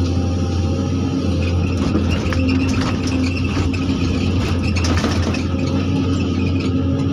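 Zoomlion excavator's diesel engine running steadily under working load, heard from inside the cab, with clattering and scraping of gravel and rocks as the bucket digs, busiest from about two to five seconds in.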